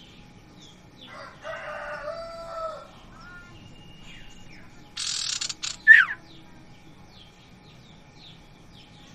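Small songbirds chirping softly throughout, with one loud, sharp falling chirp about six seconds in. A rooster crows in the background between about one and three seconds in, and a short rustle or flutter comes just before the loud chirp.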